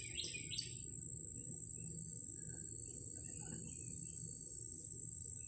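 Outdoor ambience: a bird sings a quick run of about four chirps at the very start, over a steady high-pitched whine and a constant low hiss.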